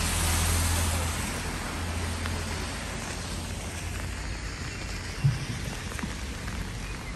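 Heavy rain falling steadily on wet pavement. A car passes on the wet road in the first couple of seconds, and there is a single thump about five seconds in.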